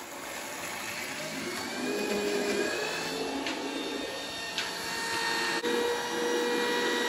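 Steady whir of a small electric motor running indoors, with a few faint held tones over it.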